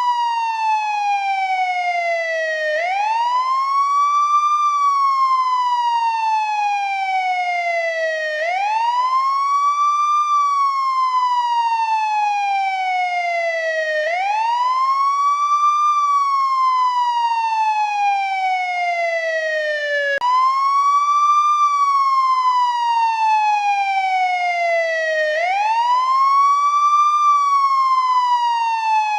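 Older-model American ambulance wail siren. Its pitch sweeps up quickly, then glides slowly back down, in a cycle that repeats about every five to six seconds, five times here.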